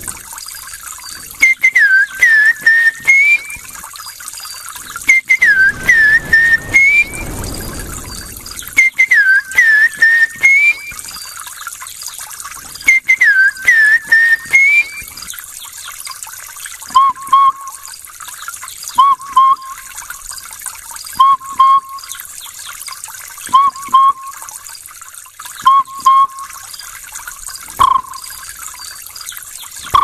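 A man imitating Tanzanian bird calls by mouth. First comes a phrase of several quick falling-and-rising whistled notes, repeated four times about every four seconds. From about halfway, a shorter, lower call repeats about every two seconds.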